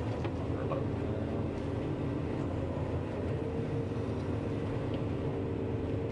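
John Deere 9500 combine running steadily while harvesting corn: an even, low machine drone with constant engine hum.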